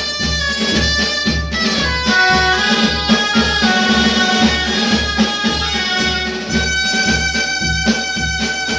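A dulzaina ensemble plays a pasodoble: shrill double-reed dulzainas carry the melody over a steady two-beat bass drum and snare. In the last couple of seconds the melody settles into long held notes.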